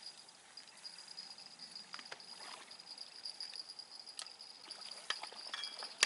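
Insects trilling steadily at a high pitch, with a few scattered clicks and rustles.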